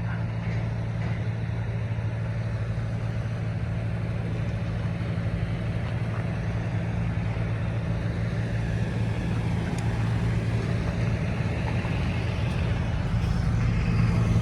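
An engine idling steadily, a low hum, getting slightly louder over the last few seconds.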